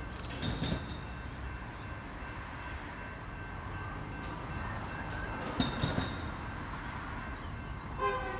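A train approaching out of sight: a low steady rumble with a faint high hum, growing slowly louder, broken by short clusters of clicks about half a second and about six seconds in and a brief pitched tone at the very end.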